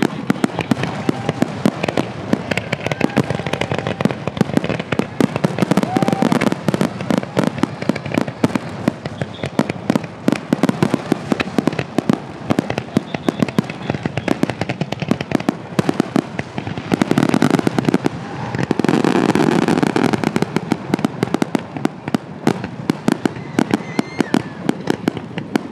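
Aerial fireworks bursting in a rapid, continuous barrage of bangs and crackles, densest and loudest between about seventeen and twenty-one seconds in.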